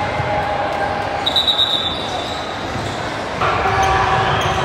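Sports hall din during a match: balls thudding as they are hit and bounce, with voices echoing in the large hall. A high steady tone sounds for about two seconds starting a second in, and the noise grows louder shortly before the end.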